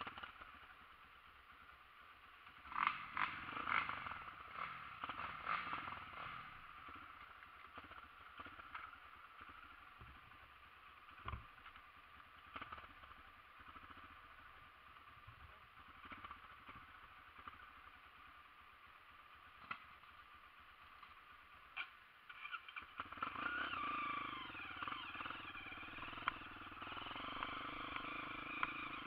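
Honda CRF dirt bike's single-cylinder four-stroke engine running faintly at low revs, with scattered clicks and knocks early on. From about three-quarters of the way through it grows louder, its note rising and falling as the bike pulls away.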